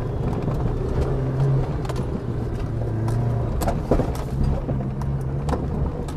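Old 4x4 engine running under load on a rough track, with repeated knocks and clunks from the front suspension as the wheels go over bumps. The noise comes from both front sides: worn ball joints in the control arms and steering tie rods.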